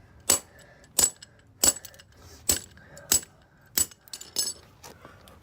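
Plastic fidget cube shell being smashed: about seven sharp blows in quick succession, less than a second apart, with small hard plastic clinks.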